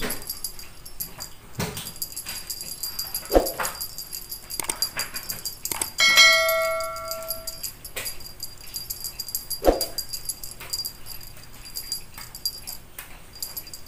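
Small jingle bell on a cat wand toy tinkling and rattling as it is dangled and shaken, with a few light knocks. About six seconds in, a clear metallic ring stands out as the loudest sound and dies away over about a second and a half.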